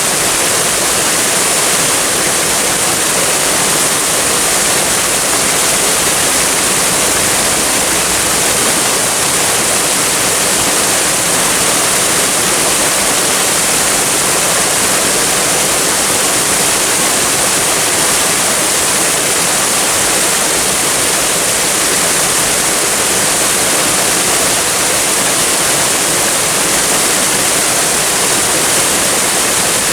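Waterfall, a steady rush of falling water without any break.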